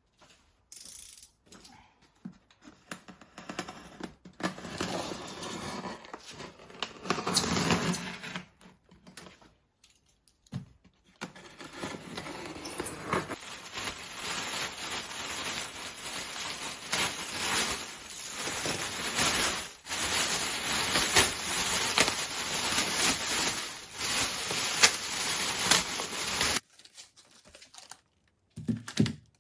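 A taped styrofoam delivery box being opened and unpacked: tape tearing, styrofoam scraping and a plastic liner bag crinkling as packs of raw meat are handled, with steady dense rustling through the second half that stops shortly before the end.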